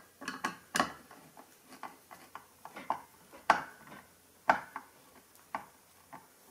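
Phillips screwdriver turning a machine screw into a nut held with pliers against a steel bed-frame bracket and adapter plate. It makes irregular small metallic clicks and ticks, about one or two a second, with the sharpest two near the middle.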